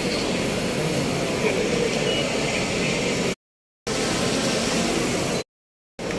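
Steady event-hall background noise, an even rush with no speech in it, cut off completely twice, briefly, about three and a half and five and a half seconds in.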